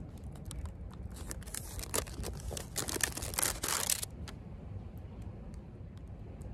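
Paper sleeve and clear plastic lid of a takeaway bento box crinkling and crackling as they are pulled off, in quick dense bursts for about four seconds, then stopping, leaving a low steady rumble.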